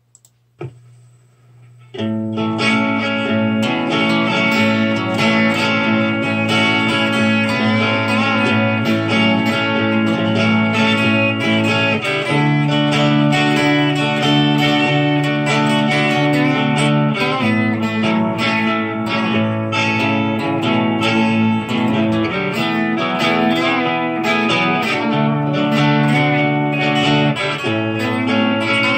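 A recorded chord progression comes in about two seconds in, with the chord changing every few seconds. An electric guitar plays an improvised lead over it in A major pentatonic, with string bends and slides.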